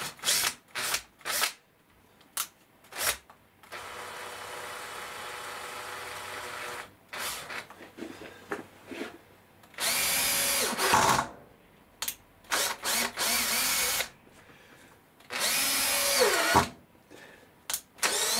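Electric drill with a worn double-ended screwdriver bit driving screws into wood, run in repeated bursts: a few quick blips, then a steadier run, then several louder one-to-two-second runs. The motor's pitch slides down near the end of some of the runs.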